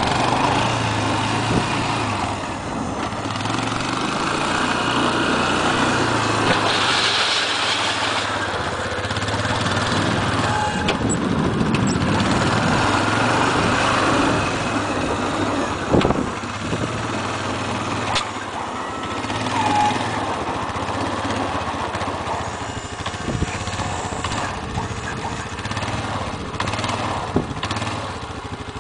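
ATV engine running as the quad drives back and forth pushing snow with its front loader bucket, its pitch rising and falling with the throttle. A sharp knock about halfway through and another near the end.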